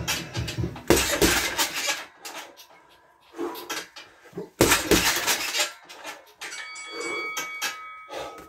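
Gloved punches landing on a heavy bag in two quick bursts of combinations, with metallic clinking. A thin ringing tone sounds near the end.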